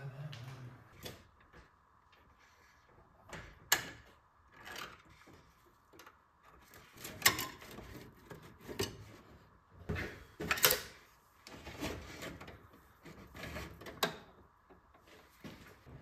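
Irregular knocks, clicks and short scrapes of hands working under the dashboard of an Alfa Romeo Alfetta, fitting a replacement choke cable assembly and working the cable through the firewall.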